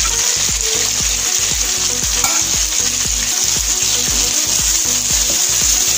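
Small shallots, curry leaves and coriander leaves sizzling steadily in hot oil in a kadai, stirred with a wooden spatula.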